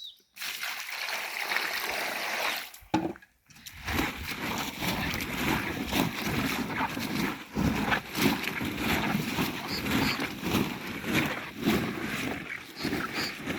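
Carrots being washed in a sack: water splashing and sloshing, with many small knocks and rattles as the carrots are shaken and rubbed together. It breaks off briefly about three seconds in, then goes on.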